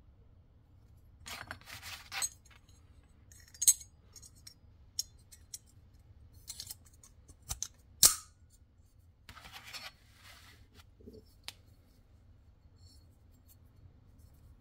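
Antique Chinese brass padlock being handled, its bolt slid against the lock body with short scrapes and sharp metallic clicks and clinks, the loudest near the middle.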